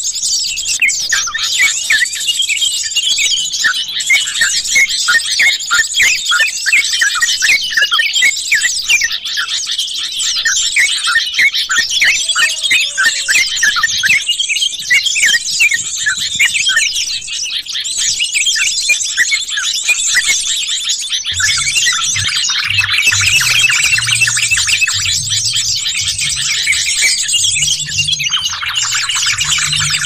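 Dense chorus of many yellow-vented bulbuls (trucukan) chattering at once, rapid short notes overlapping without a break, played as a bird-lure recording. From about two-thirds through, a low rumble runs underneath.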